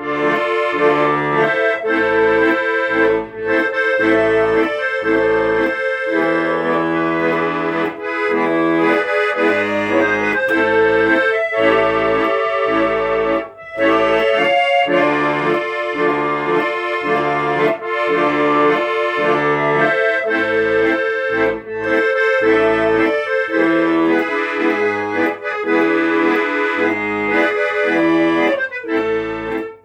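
Instrumental music: a held melody over an even, rhythmic bass-and-chord accompaniment, with a short break about halfway through.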